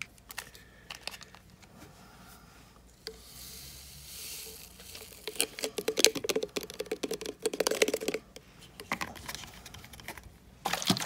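Drink-mix powder packet rustling and crinkling as it is handled and its powder is tipped into a plastic sports-drink bottle of water. Near the end the bottle's screw cap goes on.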